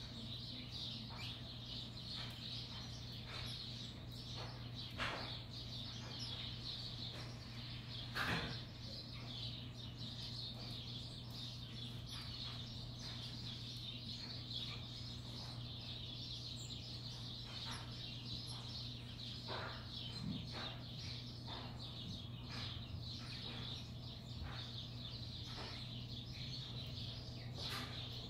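House sparrows chirping in a steady, continuous chatter, with scattered short clicks, the loudest about eight seconds in, over a steady low hum.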